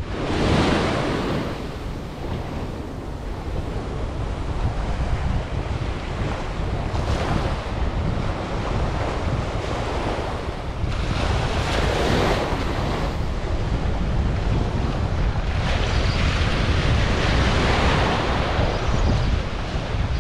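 Small ocean waves breaking and washing up the sand. Each wash swells and fades every few seconds over a constant low rumble of wind buffeting the microphone.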